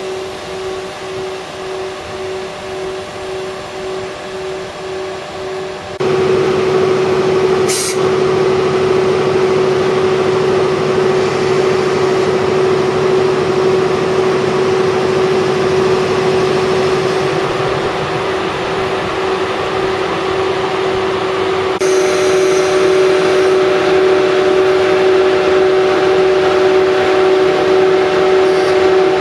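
JNR EF81 electric locomotive standing at a platform with its cooling blowers running: a steady hum with a held whine. It wavers slightly at first, then suddenly gets louder and fuller about six seconds in, with a short sharp click just after. A higher tone joins in about twenty-two seconds in.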